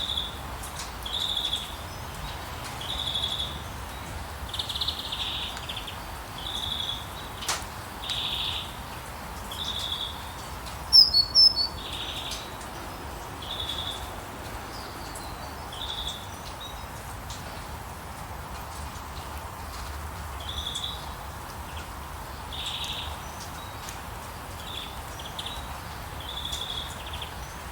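Birds singing: one bird repeats a short high call every second or two, and a louder burst of higher chirps comes about eleven seconds in, over a steady background hiss.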